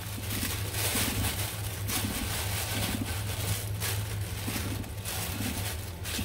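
Thin plastic shopping bag rustling and crinkling as a hand rummages inside it, with crackles coming and going unevenly over a steady low hum.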